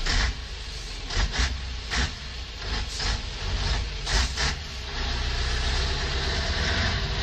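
Large diesel truck engine running steadily, with several short bursts of hiss-like noise over it.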